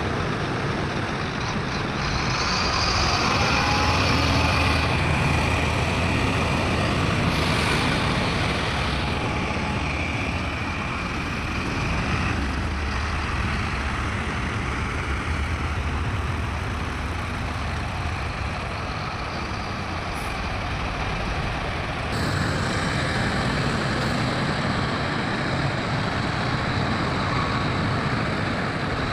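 Heavy diesel earthmoving machinery running, a steady low engine rumble under a hiss of higher noise. The sound changes abruptly about two, twelve and twenty-two seconds in.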